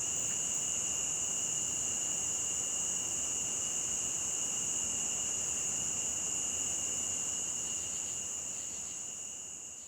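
Crickets chirping in a dense, steady chorus, high-pitched, over the low wash of a stream. The whole sound fades out near the end.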